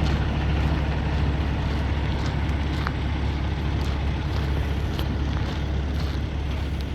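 Wind blowing across the microphone over a steady low hum, with a few faint clicks.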